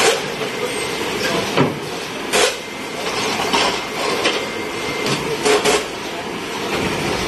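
DASWELL BMM 4-26 automatic hollow-block machine running: a steady mechanical clatter with sharp metal clanks at irregular intervals, about eight of them, as a pallet of freshly pressed concrete blocks is pushed out onto the conveyor.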